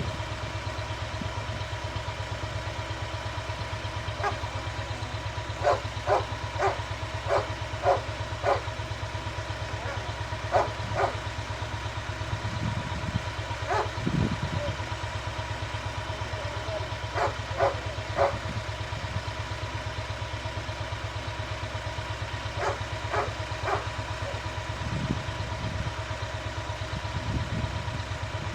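Walk-behind rotary tiller's small engine running steadily under load while tilling soil. Over it a dog barks in several short runs of quick barks, about two a second.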